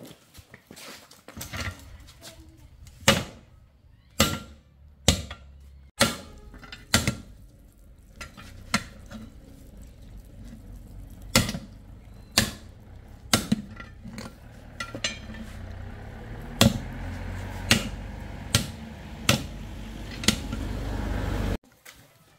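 Repeated sharp metal strikes, roughly one a second, like hammer blows on metal, over a low steady machine hum that grows louder and cuts off suddenly near the end.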